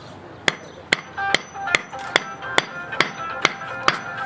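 Hand hammer striking the stone cornerstone in steady, evenly spaced blows, about two a second, each blow with a short ring from about a second in.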